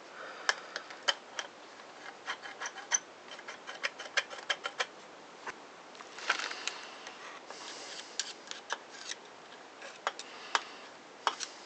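Irregular light clicks and taps of small metal parts of a Makita 5621 circular saw being handled and fitted by hand during reassembly, with a couple of brief scraping rubs about halfway through.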